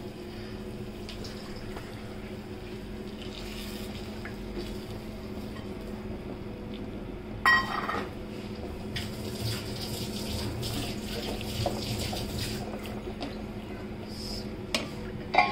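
Thick ground masala paste frying and bubbling in a steel pot, being cooked until the oil separates. A steel spatula clanks sharply against the pot once, about seven and a half seconds in, and knocks and scrapes a few times near the end, over a steady hum.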